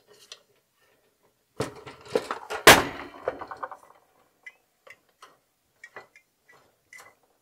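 Handling knocks from a Mr. Heater Portable Buddy propane heater, with one loud thump nearly three seconds in as the heater is set upright on the table, then light clicks and taps as a 1 lb propane cylinder is screwed onto the heater's connector.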